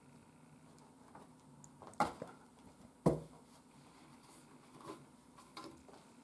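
A cat nosing and bumping at a cardboard box and crumpled paper: a few soft taps and rustles, with two sharper knocks about two and three seconds in, the second with a dull thud.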